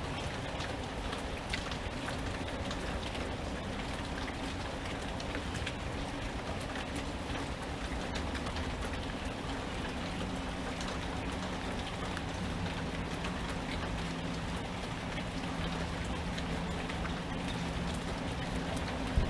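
Steady rain falling, with many individual drops striking close by. A faint low hum joins about halfway through.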